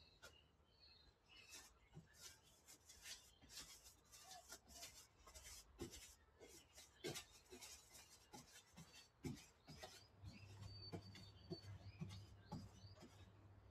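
Paintbrush bristles brushing paint onto the sheet-metal floor of a Toyota Hilux cab: a faint, quick, irregular run of short scratchy strokes.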